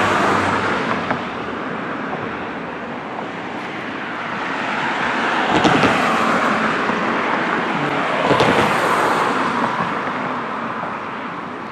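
Passenger cars driving past one after another on the street, the tyre and engine noise swelling as each goes by, loudest about halfway through, then fading away near the end.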